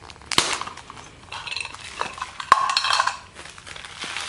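Hard plastic survival kit case being opened and emptied by hand: sharp clicks about half a second in and again about two and a half seconds in, with plastic rattling and rustling between as the bagged items are pulled out.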